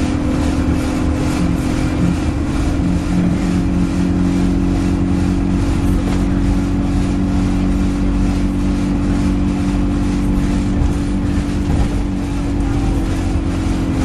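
Alexander Dennis Enviro 200 Dart bus running with a steady engine drone and a loud, regular ticking, a few ticks a second.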